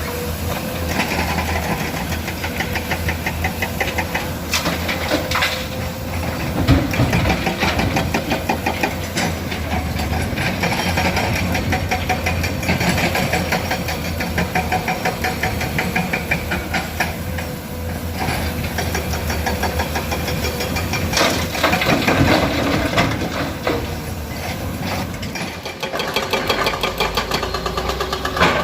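Komatsu PC200 excavator's diesel engine running steadily as it works, with louder bouts of clatter and scraping from broken stone being scooped and dumped a few times.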